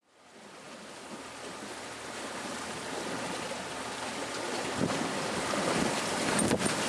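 Water washing along the hull of a Duffy 14 electric boat under way, with wind on the microphone: a steady hiss that fades in from silence and slowly grows louder, with a few sharp ticks near the end. The electric drive is quiet enough not to stand out.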